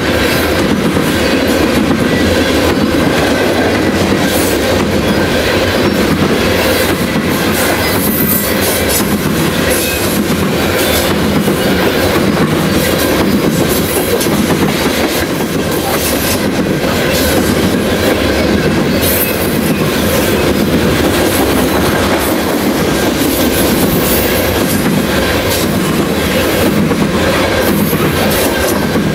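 Freight train of coal hopper cars rolling past close by: a steady loud rumble of steel wheels, with rhythmic clickety-clack as the wheel sets pass over the rail joints.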